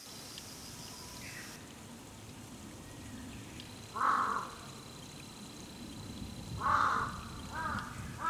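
Crows cawing: a harsh caw about four seconds in and another just before seven seconds, then a quick run of shorter calls near the end.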